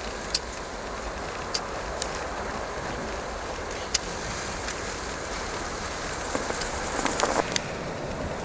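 Honda HR-V driving over a snow-covered road: steady tyre and road noise with a few sharp ticks, and a short run of crackling near the end.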